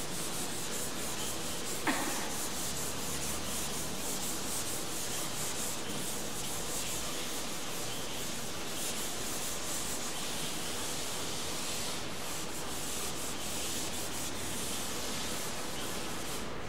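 Chalkboard being wiped clean with an eraser: steady rubbing of the eraser across the board's surface, with one short knock about two seconds in.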